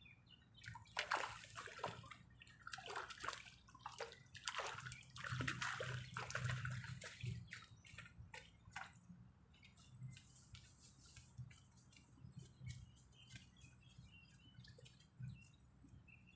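Water splashing and sloshing in irregular bursts for the first half or so, then dying down to faint scattered ticks.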